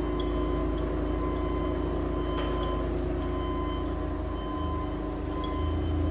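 Colchester Magnum 1250 engine lathe running with its spindle turning at a slow 20 RPM: the 30 hp main drive motor and headstock gearing give a steady hum with several steady whining tones. About four and a half seconds in, the low hum grows louder.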